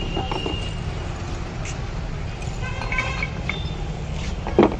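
Steady street traffic rumble, with one sharp knock of glass goli soda bottles being handled near the end.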